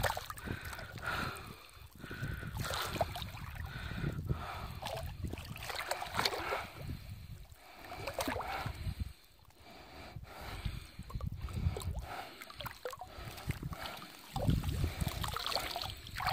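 Water sloshing, trickling and dripping as a cast net is hauled in by its rope from shallow water, growing louder near the end as the wet mesh comes up.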